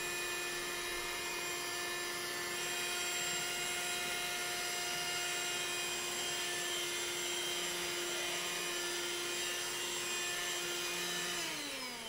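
DOFLY cordless handheld vacuum cleaner running, a steady motor whine over the hiss of rushing air as it sucks up crushed biscuit crumbs. Shortly before the end the whine drops in pitch and fades as the motor spins down.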